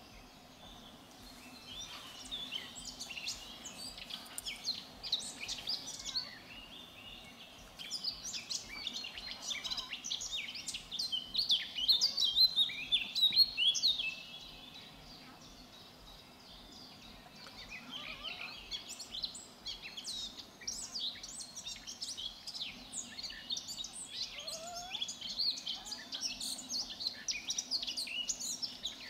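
Small songbirds chirping and singing in quick, dense runs of high twitters, loudest a little before the middle, then a short lull before they pick up again.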